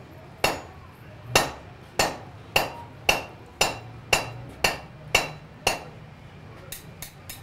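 Blacksmith's hammer striking a red-hot iron bar held over a hardy tool in the anvil: about ten sharp metallic blows, roughly two a second, each ringing briefly. A few lighter taps follow near the end.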